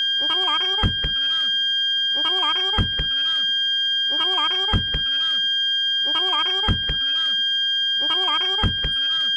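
Toyota Calya/Sigra parking sensor sounding a continuous high-pitched tone rather than separate beeps, the warning for an obstacle very close behind. About every two seconds a short sound with a wavering pitch repeats, each time with a low thump.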